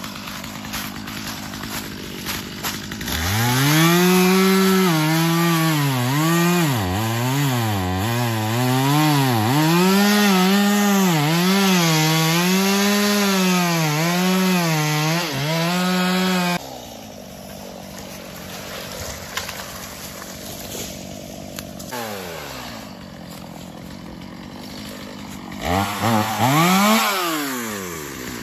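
Gas chainsaw cutting wood near the ground. About three seconds in it revs up and holds high for some thirteen seconds, its pitch dipping and recovering over and over as the chain bites, then drops suddenly to idle. It revs up again near the end.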